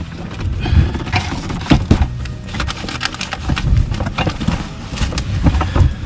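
Irregular knocks, clunks and scraping as the metal and plastic parts of a pneumatic roller stool are handled and fitted together, including the caster wheels being pushed into the base.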